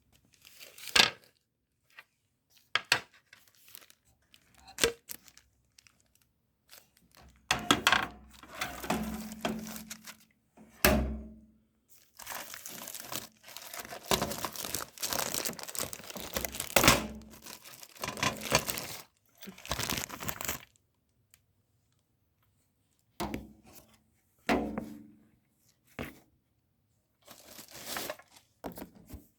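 Packaging being unwrapped and handled: bouts of crinkling and tearing with a few light knocks, a longer unbroken stretch in the middle, and short pauses between.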